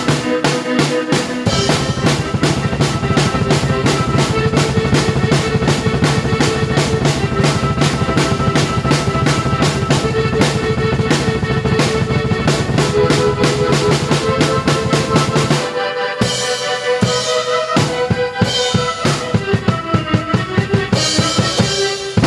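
A drum kit played in time with a keyboard: kick, snare and rimshot hits in a steady groove over held keyboard notes. About two-thirds of the way through the low part drops out and the drumming thins to sparser hits with cymbal crashes.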